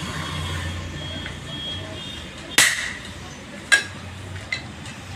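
Three hand-hammer blows on a steel punch over a steel block, each a sharp metallic strike with a brief ring. The first, about two and a half seconds in, is the loudest, and the last is the faintest, over a steady low hum.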